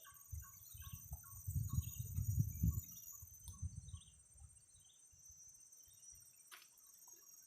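Steady high-pitched drone of insects with many short bird chirps scattered through it. Low rumbling noise, such as wind on the microphone, comes and goes in the first three seconds.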